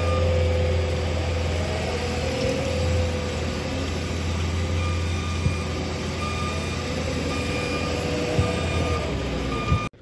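Heavy construction machine engine running steadily with a low hum, its backup alarm beeping in short repeated tones. The sound cuts off suddenly near the end.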